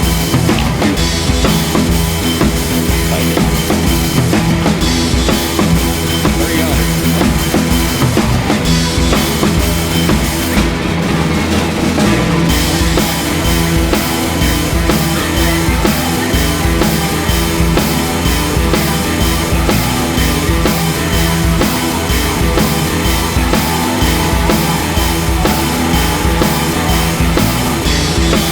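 Rock music with a steady drum-kit beat and bass drum.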